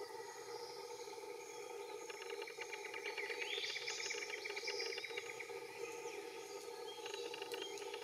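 Spotted pardalote calling with short, high, thin whistled notes, with a rising note about three and a half seconds in. Behind it runs a steady buzzy insect trill and a low, even hum of background chorus.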